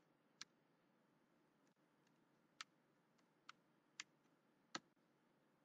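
Faint computer keyboard keystrokes: about six separate key taps at an uneven, slow pace as digits are typed one at a time.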